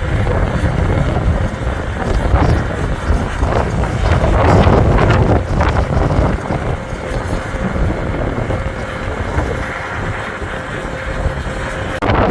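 Strong blizzard wind gusting against the microphone, a loud low rumble that swells and eases.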